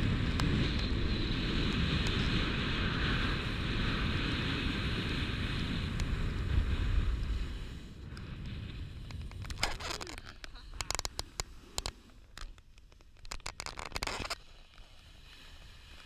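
Wind buffeting an action camera's microphone and skis hissing over snow during a downhill run, dying away about halfway through as the skier slows to a stop. After that, scattered scrapes and clicks from the skis and gear.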